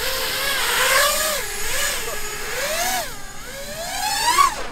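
5-inch FPV quadcopter's brushless motors and tri-blade props whining at takeoff, the pitch wavering up and down with the throttle and climbing sharply near the end.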